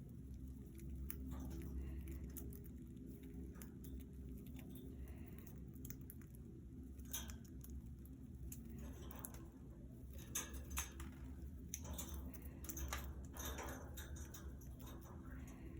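Scattered small clicks and taps, irregular and fairly quiet, of budgies moving about and pecking in a wire cage, over a low steady hum.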